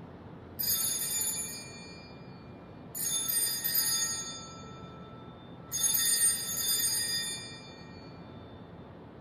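Altar bells (Sanctus bells) rung three times, about two and a half seconds apart, each ring a shaken peal of bright high tones that fades over a second or two. They mark the elevation of the host at the consecration of the Mass.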